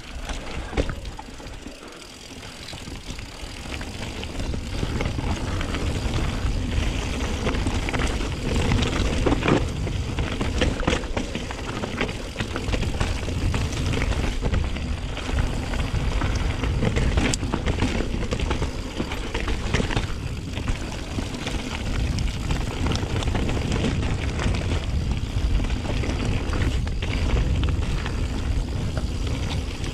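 Mountain bike riding down a rough trail, picked up by a chest-mounted microphone. Wind rumbles on the mic and the tyres run over the ground, with frequent rattles and knocks from the bike over bumps. The sound builds over the first few seconds as the bike picks up speed.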